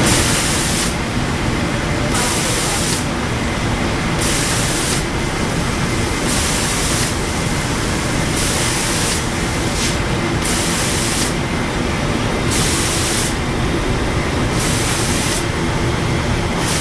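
Automatic spray guns on a cookware inner-coating line hissing in repeated bursts, each just under a second long, about every two seconds, as they spray coating into the pans passing beneath. Under the bursts runs a steady machinery din from the line.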